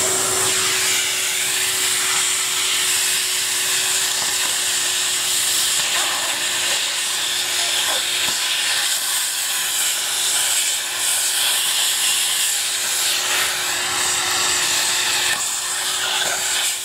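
Numatic Henry vacuum cleaner running steadily, a single held motor whine over a loud rush of air, as it sucks dry leaves off a carpet.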